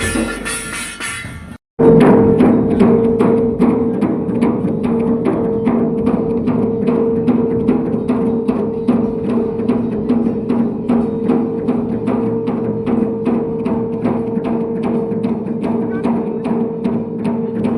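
Dhol drums beaten in a steady, driving rhythm of about three strokes a second, with a steady held tone underneath. A short passage of different, fuller music cuts off abruptly about one and a half seconds in, just before the drumming starts.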